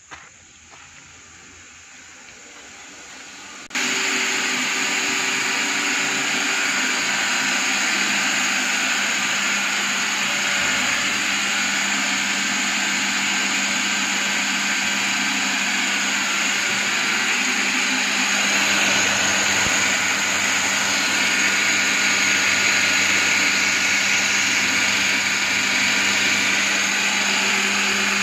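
Electric vacuum pump of a single-bucket milking machine running steadily, starting abruptly a few seconds in and holding an even whir with a steady hum beneath it.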